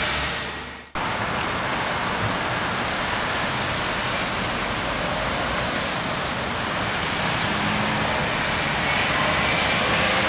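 Steady roar of road traffic: an even, hiss-like noise with no clear engine note, growing a little louder near the end. The sound drops out and restarts abruptly about a second in.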